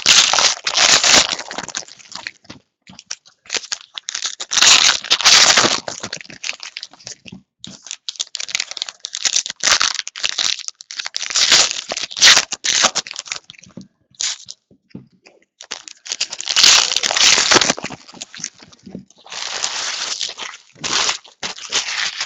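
Foil trading-card pack wrappers being torn open and crinkled, in a run of rustling bursts with short gaps between them.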